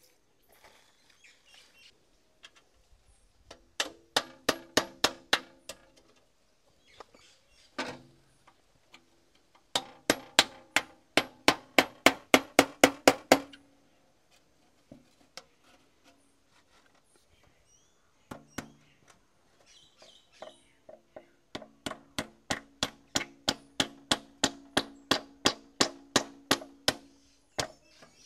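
Claw hammer striking a thin metal sheet to fold it tightly around a wooden spout. The blows come in three quick runs of about four strikes a second, each with a short metallic ring, with a lone blow and a few scattered ones between the runs.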